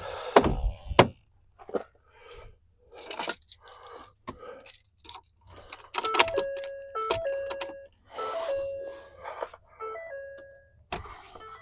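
A bunch of keys jangling and clicking. About halfway through, a series of electronic chime tones starts, stepping between a few pitches and repeating: the pickup's dashboard warning chime as the key is turned and the lights are switched on.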